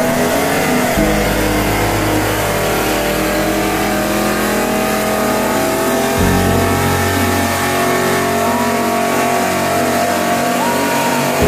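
Pickup truck engine held at high revs during a burnout, its rear tyres spinning on asphalt.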